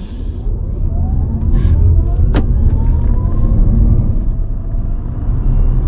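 Tata Punch EV's electric motor whining and rising steadily in pitch as the car accelerates hard from a standing start, over a low rumble of tyre and road noise inside the cabin. A single sharp click about two and a half seconds in.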